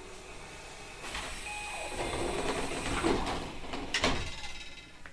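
Passenger doors of a Tobu 30000 series train sliding, ending in a sharp thud about four seconds in.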